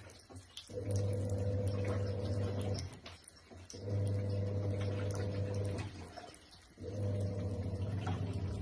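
A pet animal making a long, steady, low-pitched sound about two seconds at a time, repeated four times with short pauses between, in a regular rhythm like breathing.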